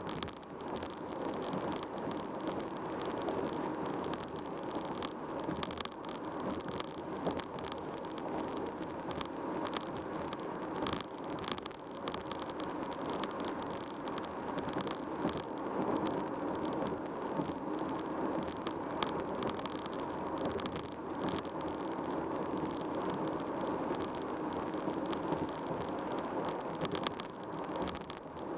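A car travelling at freeway speed: a steady hiss of tyre and road noise that holds evenly throughout.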